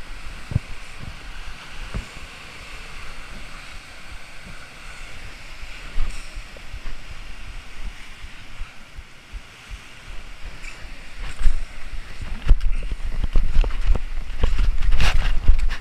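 Rough sea surf washing and breaking over rocks, with wind noise on the microphone. From about eleven seconds in it grows louder, with heavy low buffeting and a few sharp knocks.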